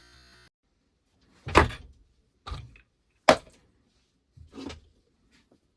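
A series of sharp knocks and thumps, about five of them roughly a second apart, the first coming after a short pause.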